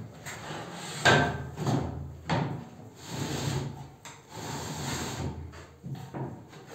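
Wooden battens knocking and scraping against the ceiling framing as they are handled overhead: a sharp knock about a second in, a few lighter knocks after it, then two longer stretches of rubbing.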